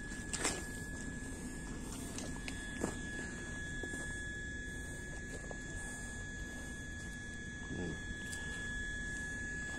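A steady high-pitched hum over a low background rumble, with a couple of footsteps on dry dirt in the first moments.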